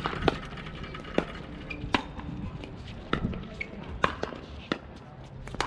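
Pickleball rally: paddles hitting a plastic pickleball back and forth, a string of sharp pops roughly once a second.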